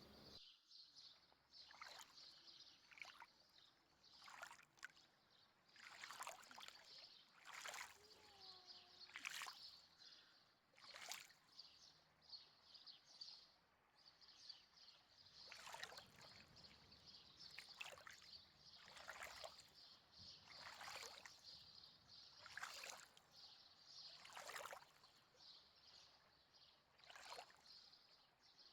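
Faint outdoor ambience: a steady high-pitched chirring hiss, with soft swishes every second or two that pause for a few seconds partway through.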